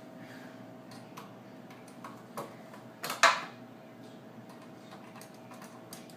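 Small metal screws clicking and clinking as they are handled, with one louder clatter about three seconds in.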